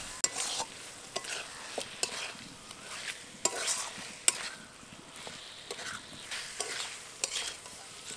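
A spatula stirring and turning chicken pieces in spice paste in a metal kadai, scraping and knocking irregularly against the pan over the sizzle of the frying masala.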